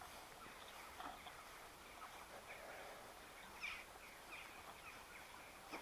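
Faint birdsong: short scattered chirps over a quiet background hiss, the clearest about three and a half seconds in.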